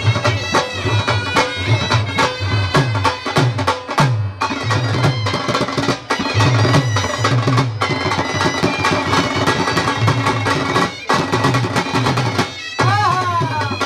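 Two dhol drums beating a fast rhythm of deep strokes under the steady, held melody of a reed wind instrument.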